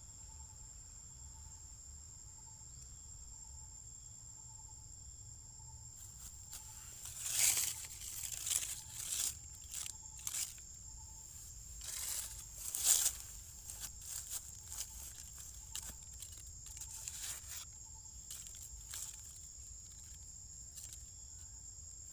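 Irregular rustling and crunching in dry leaf litter, starting about six seconds in, with a few louder crackling bursts, over a steady high-pitched insect trill.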